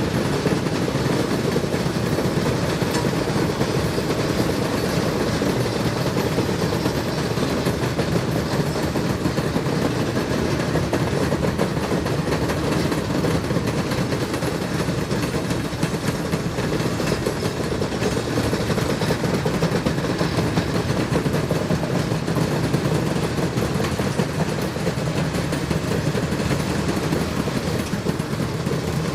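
ALCo S1 diesel switcher locomotive running, a loud, steady engine rumble that does not change throughout.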